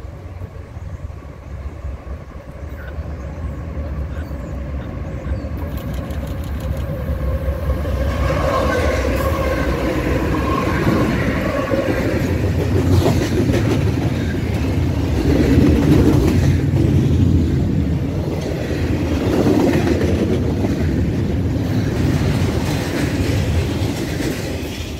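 A Canadian Pacific freight train passes at speed. Its diesel locomotives grow louder as they approach and go by about a third of the way in. Double-stack container well cars then rattle past with a rapid clatter of wheels on the rail joints, fading near the end as the tail goes by.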